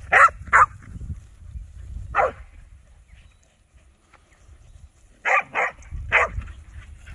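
Young Corgi–Mini Aussie cross herding dog barking while working sheep: six short, sharp barks, two quick ones at the start, one about two seconds in, and three more close together near the end.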